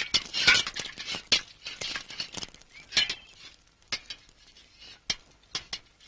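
A metal ladle stirring and scraping in a large brass vessel of medicinal oil, with quick clinks and scrapes for the first couple of seconds. After that come a few separate metallic clinks.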